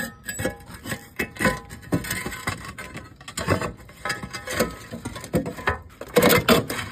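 Old roofing being prised and pulled loose by hand: a quick, irregular run of scrapes, knocks and rustles, busiest near the end.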